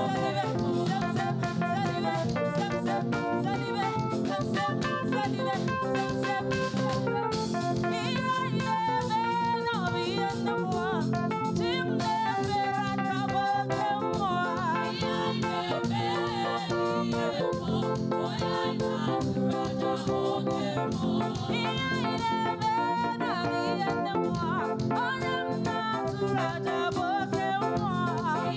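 Live gospel praise music: voices singing over a band with drums keeping a steady beat.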